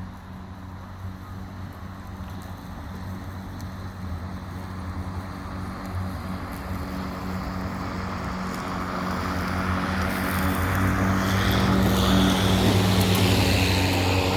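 Ego LM2100 cordless electric lawn mower running, its motor humming and blade whirring through grass, growing steadily louder through the second half.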